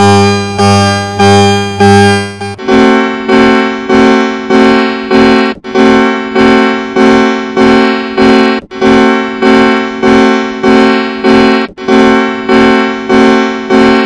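Emergency alert alarm tone altered with audio effects: an electronic tone pulsing about three beeps every two seconds, jumping to a higher pitch about two and a half seconds in.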